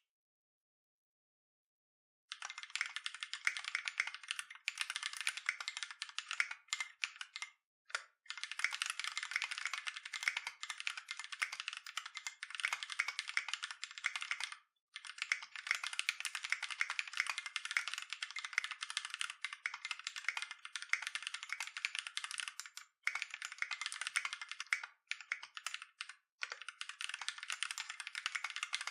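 Fast continuous typing on a custom mechanical keyboard with Holy GSUS tactile switches and Tai Hao Avatar keycaps: a dense stream of key clacks. It starts about two seconds in and stops briefly a handful of times.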